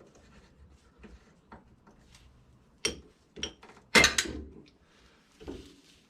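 Tools and parts being handled during ATV repair work: scattered knocks and clatters, the loudest a short clattering about four seconds in.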